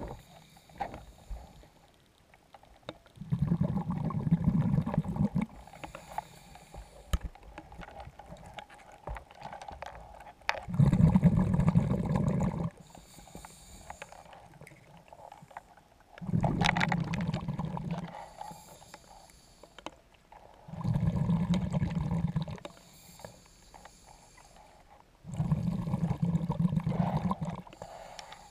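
Scuba diver breathing through a regulator underwater: five rumbling gushes of exhaled bubbles, each about two seconds long and about five seconds apart, with a faint hiss of inhalation in the quieter gaps.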